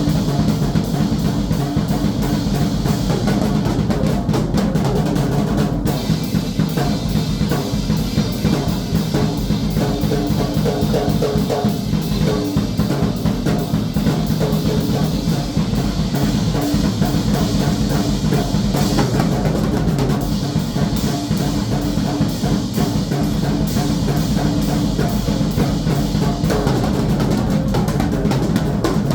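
Drum kit played continuously, a dense unbroken run of fast hits with no pauses.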